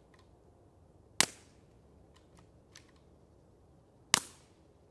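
Two suppressed shots from a Ruger Precision Rimfire with an AB Suppressors MELB-P integral suppressed barrel, heard from downrange, about three seconds apart. Each is a short, sharp report with a brief tail. A few faint clicks come between the shots.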